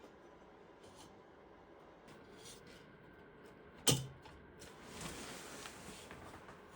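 Quiet handling of a Moto Guzzi cylinder being worked on over the piston and studs during reassembly: one sharp knock about four seconds in, then a second or two of soft rubbing and scraping.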